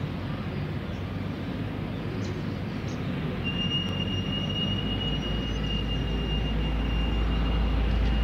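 Ambient music intro: a swelling wash of noise that grows steadily louder, with a steady high tone coming in about three and a half seconds in and a low drone about a second later.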